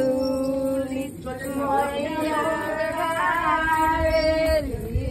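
Women's voices singing in long held notes, a slow chant-like melody with a wavering note about three seconds in.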